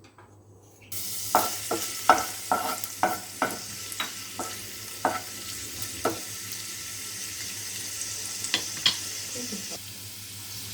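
Chopped garlic dropped into hot oil in a non-stick pan, sizzling. The sizzle starts suddenly about a second in. A utensil knocks against the pan as the garlic is stirred, about two strokes a second for several seconds, then twice more near the end.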